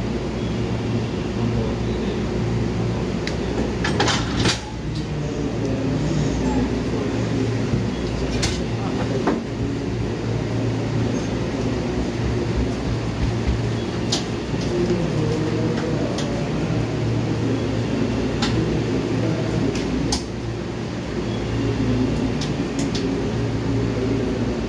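Two halves of a 285 series Sunrise Express sleeper train coupling. A loud sharp clunk about four seconds in as the couplers engage, then scattered lighter clicks and knocks, over a steady low hum.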